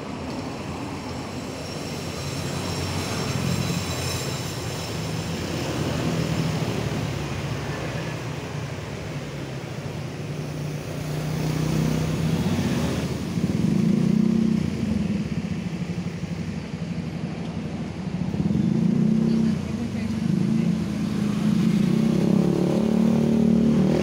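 Street traffic: motor vehicle engines running close by, swelling and fading in turn and growing louder toward the end.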